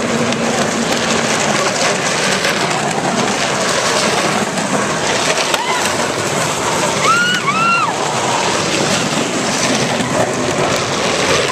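Plastic big-wheel tricycle wheels rumbling and scraping down an asphalt street, mixed with steady crowd noise. Two short high rising-and-falling calls come from the crowd about seven seconds in.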